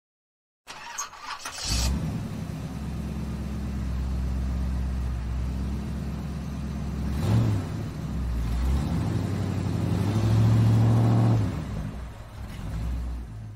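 Rhaetian Railway electric train on the Arosa line running: a steady low hum with several pitched lines. It cuts in about a second in with a short hiss and clatter, swells towards the later part and fades out at the end.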